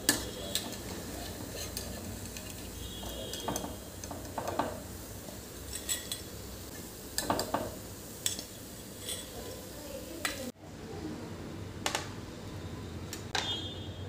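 Vegetable fritters (pakoras) deep-frying in oil in a steel kadai, a steady sizzle with repeated clinks of a steel skimmer against the pan as they are stirred and lifted out. About three quarters of the way in the sizzle cuts off suddenly, and a few light clinks follow.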